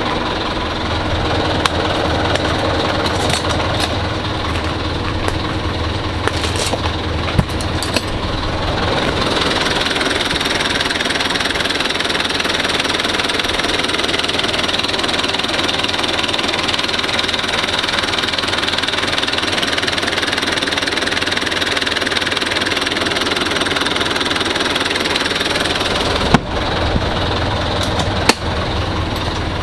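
1996 Mitsubishi Fuso Canter truck engine idling steadily, its tone shifting about a third of the way in and again near the end. A few sharp clicks, two of them near the end.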